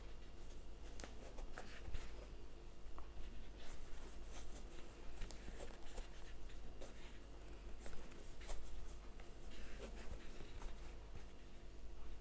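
Soft rustling and scattered light clicks of a crochet hook working t-shirt yarn, stitch after stitch, over a faint steady low hum.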